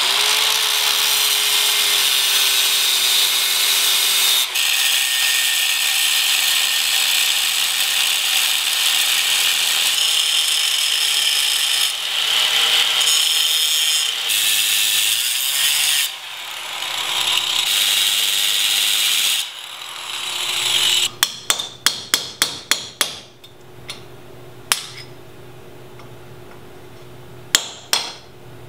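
Angle grinder with a thin cutoff wheel cutting into a steel axle differential cover, running continuously with its pitch and load shifting as the wheel bites, then stopping. A hammer then knocks at the partly cut piece: a quick run of about nine blows, then three more spaced out near the end.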